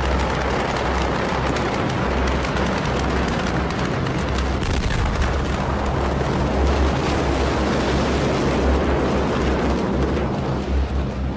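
A loud, continuous roaring rumble with scattered sharp cracks and pops: the fire and explosion at the Beirut port warehouse, heard close on a handheld phone.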